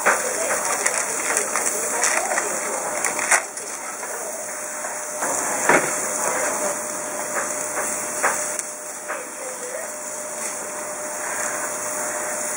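Scotch fillet steaks sizzling on a hot gas barbecue grill: a steady hiss with many small crackles. A louder knock sounds about six seconds in.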